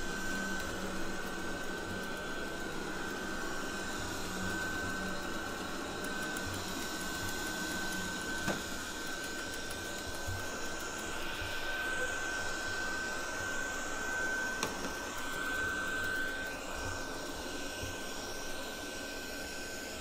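TESVOR X500 robot vacuum running on carpet: the brushless suction motor and brushes make a steady whir with a steady high whine over it.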